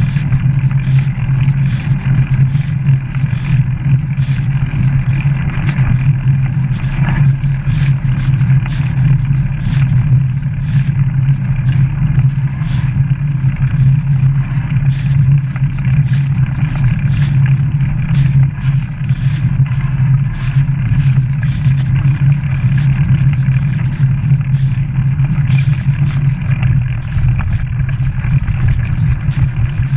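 Wind buffeting the microphone of a camera riding on a moving bicycle: a loud, steady rumble, with frequent short rattling clicks from the bike over the path.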